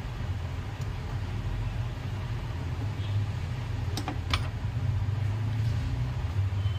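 A steady low hum, with two sharp clicks about four seconds in, a third of a second apart.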